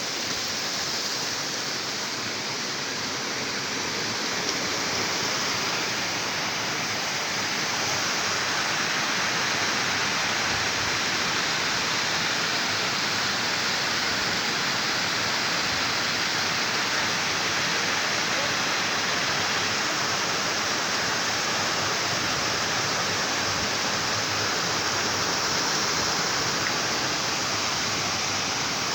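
Waterfall crashing: a steady, unbroken rush of falling water.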